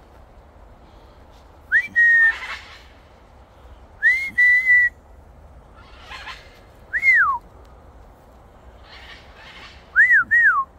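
A person whistling four loud, clear phrases: the first two rise and then hold a steady note, the third rises and falls away, and the last is a quick double rise-and-fall. Fainter scratchy bursts sound between the whistles.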